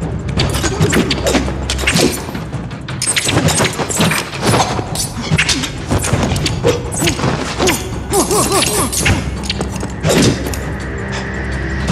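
Movie fight sound effects: a rapid run of hits, thuds and crashes, with a cluster of short grunts about eight seconds in, under a music score.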